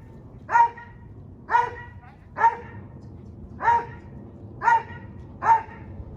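A dog barking six times, roughly a second apart.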